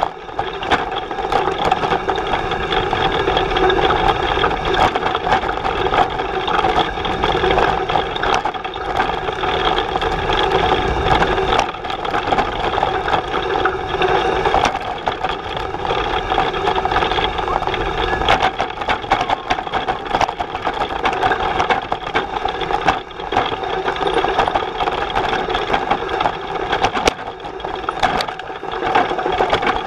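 Bullitt cargo bike rolling over a bumpy forest dirt trail: the frame and front cargo box rattle and knock continuously under a steady droning hum, picked up by a camera mounted on the bike.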